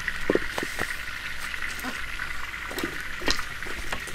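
A few short knocks and clicks as a wok and firewood are handled at a wood-fired stove, over a steady high-pitched drone.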